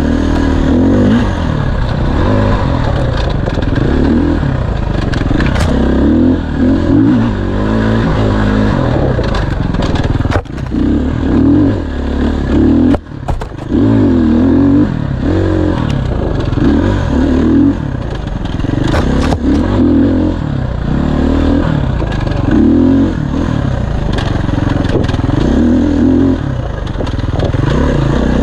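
Off-road dirt bike engine revving up and down as the throttle is rolled on and off, pitch rising and falling every second or so. The revs cut back briefly a couple of times about a third of the way in.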